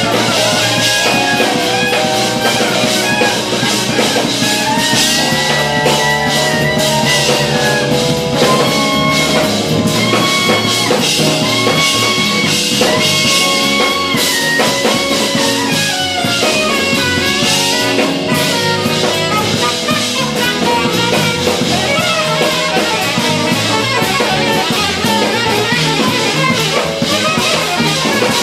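Live jazz fusion band playing an instrumental: electric guitar, electric bass, drum kit and saxophone, with a lead line of long, bending notes over the band.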